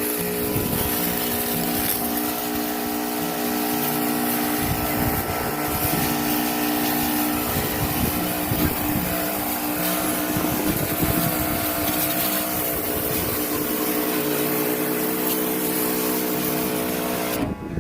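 Small electric water pump of a homemade pressure washer running steadily with a constant hum, its water jet hissing as it sprays the condenser coil. It cuts off near the end.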